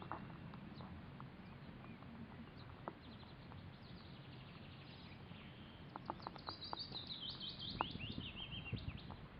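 Small birds singing: scattered faint high chirps, then from about six seconds in a quick run of high notes that steps down in pitch. Faint low background noise underneath.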